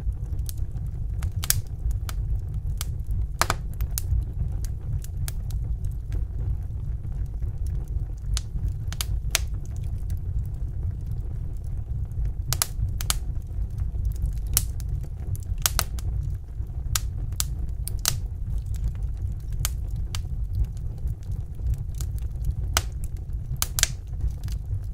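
Wood fire in a fireplace crackling: irregular sharp pops over a steady low rumble.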